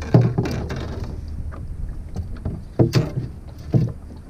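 Several sharp knocks and thumps in a small fishing boat: a pair near the start, two close together near the three-second mark and one more shortly after. A steady low rumble runs underneath.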